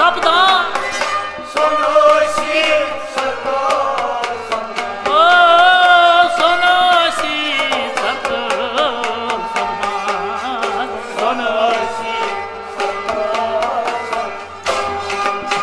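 Kashmiri folk ensemble playing: rabab plucked, sarangi bowed and harmonium, over a steady beat on a matka clay-pot drum. A male singer's voice is heard at the start, and singing comes in again near the end.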